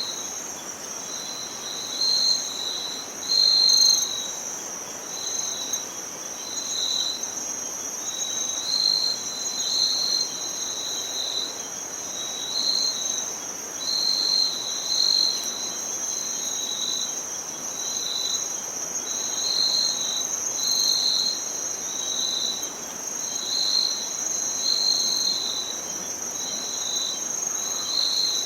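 Insect chorus, cricket-like: a steady high-pitched trill with a second, lower set of chirps swelling and fading about once a second.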